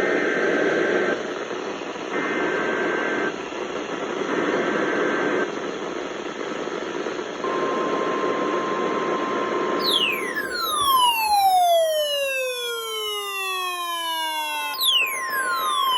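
NOAA Weather Radio alert received over the air, under a bed of radio static. It opens with three short bursts of SAME data tones (the coded alert header), then the steady 1050 Hz warning alarm tone. From about ten seconds in a siren-like sweep falls steadily in pitch, and a second sweep starts near the end.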